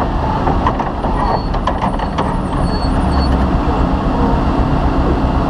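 Cross-country rally car's engine running at low speed, heard from inside the cockpit, with a few sharp clicks about one to two seconds in.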